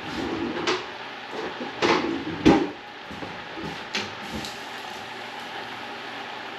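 A few sharp knocks and clatters of a spoon against a stockpot as penne is stirred. The loudest knock comes about two and a half seconds in.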